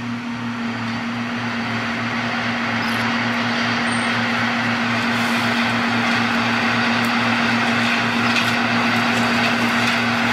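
Heavy machine's engine running steadily: a held hum over a regular low pulsing.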